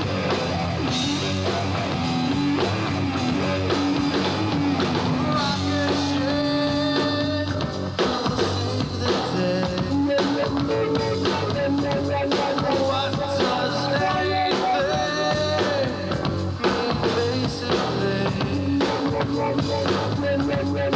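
Rock song playing: a band with a steady beat under held melody notes.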